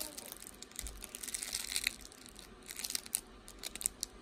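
Crinkly feet of a plush fox toy crackling and crunching in quick, irregular bursts as they are worked.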